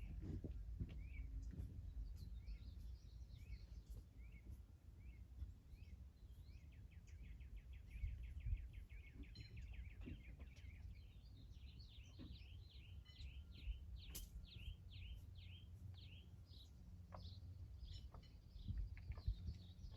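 Songbirds calling: a few short chirps, then a rapid trill, then a run of quick downward-slurred notes repeated about twice a second, over a faint low rumble of wind.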